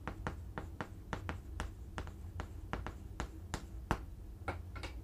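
Chalk clicking and tapping against a chalkboard as words and figures are written: a quick, irregular run of short sharp clicks, several a second.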